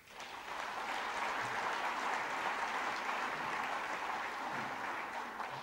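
Audience applauding, a dense patter of many hands clapping that swells up quickly, holds steady, and tapers off near the end.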